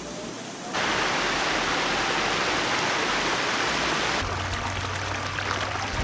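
Small creek water rushing: a loud, even rushing noise that starts abruptly about a second in and changes tone a little past four seconds in, with fine ticking through the later part.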